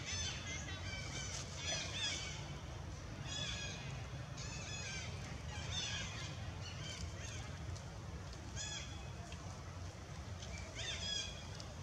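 A baby macaque crying in repeated short, high-pitched squealing calls, each bending up and down in pitch, over a low steady rumble. These are the distress cries of an infant being weaned from its mother's milk.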